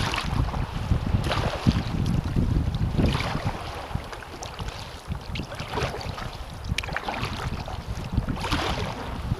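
Wind buffeting the action camera's microphone in a low, gusty rumble, with the splash of kayak paddle strokes dipping into the water every second or two.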